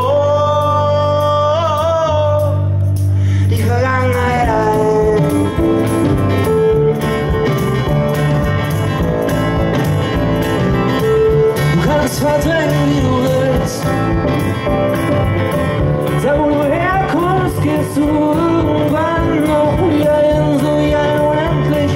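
Live band playing a song with acoustic guitar, electric bass, keyboards and drums. A man's sung note is held for the first three seconds, then the band plays on into an instrumental passage.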